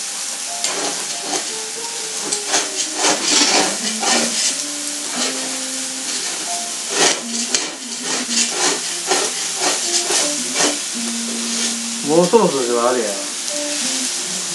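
Food sizzling on a hot barbecue plate, a steady frying hiss with frequent clicks and scrapes of utensils working the food.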